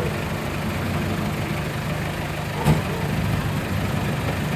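Mitsubishi L300's diesel engine running steadily, with one sharp thump a little past the middle.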